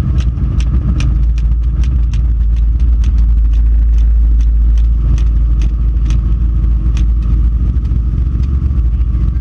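Helicopter in flight heard from inside the cabin: a loud steady rumble of engine and rotor, with a light regular ticking about two to three times a second.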